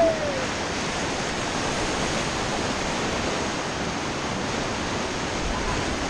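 Whitewater rapids rushing and churning around an inflatable raft, a steady, even water noise throughout.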